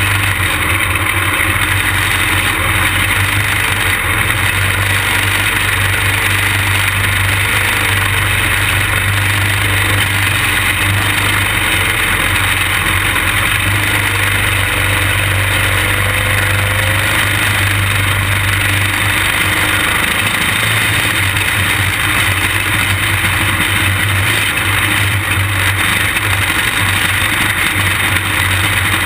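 Quarter midget race car's small engine, heard from on board, running at a steady low speed under caution without revving up or down.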